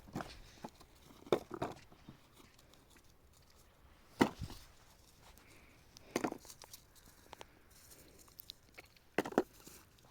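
A few scattered knocks and thumps, about six short hits spread unevenly over ten seconds, with a quiet background between them.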